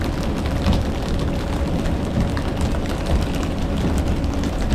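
Boat engine running with a steady low rumble and a faint even hum, under wind and sea noise, with scattered light knocks.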